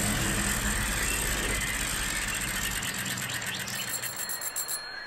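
Logo sound effect: a rushing, rattling noise that gradually fades, giving way to a run of ticks that slow down near the end.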